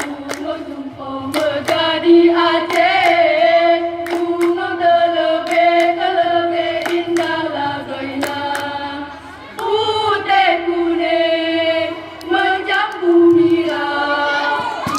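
A choir singing in several parts, holding long sustained notes with short breaks between phrases.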